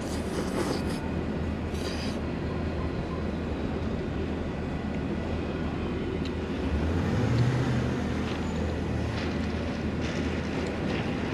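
City street traffic: a steady low rumble that swells as a heavy vehicle passes about seven seconds in. A few short scrapes sound in the first two seconds.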